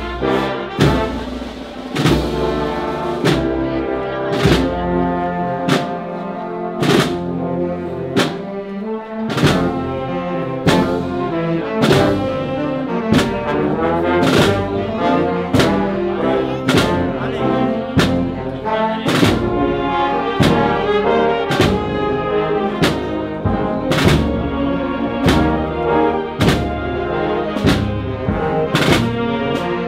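Municipal marching band playing a processional march: trombones, trumpets and other brass in sustained chords over snare drums, with a steady drum beat about once a second.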